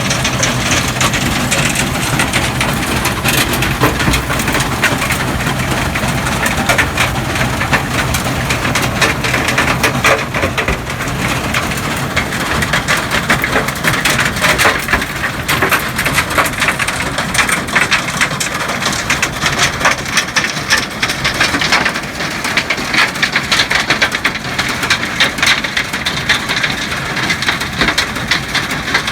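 Tractor-drawn stone picker gathering field stones: a dense, continuous clatter and crunch of stones knocking against each other and the machine. A steady low engine hum sits underneath for the first several seconds.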